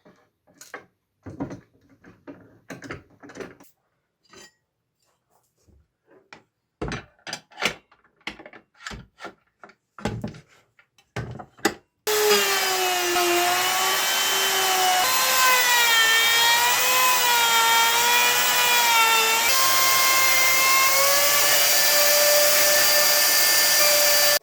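Scattered knocks and clicks of wood and tools being handled, then about halfway through a power tool starts suddenly and cuts into wood, a loud steady whine whose pitch dips and recovers as the motor is loaded.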